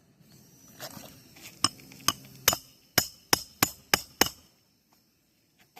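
A run of about nine sharp clicks or taps, coming closer together toward the end, after which it goes nearly silent.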